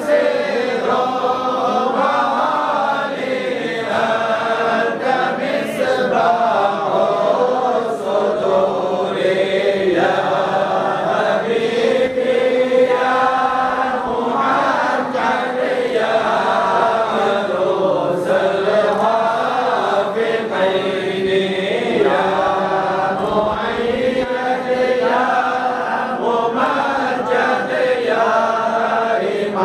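A group of men chanting an Islamic devotional recitation together, voices carried through handheld microphones, in a melodic line that rises and falls phrase by phrase without a break.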